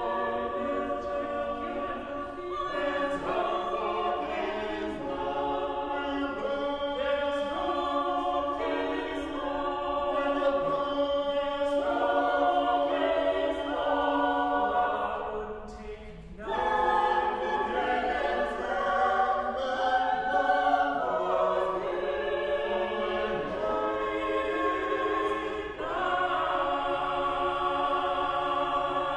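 A small mixed choir singing an anthem in parts, with a short break in the singing about halfway through.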